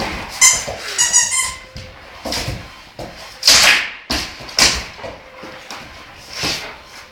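A few short high-pitched squeaks in the first second and a half, followed by several short, loud, rough noisy bursts spaced about a second apart.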